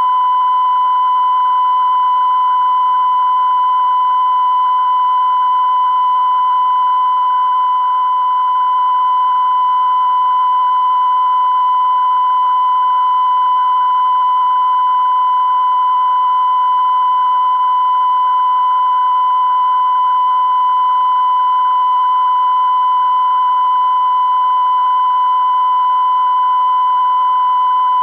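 Continuous 1 kHz test tone broadcast with the UEIT television test card: a single steady beep-like pitch that never changes or breaks, with faint hiss beneath it.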